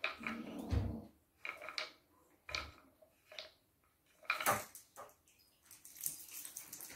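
Balls rattling and knocking around the circular tracks of a wooden ball-track cat toy as kittens bat at them, in irregular clatters with short pauses between.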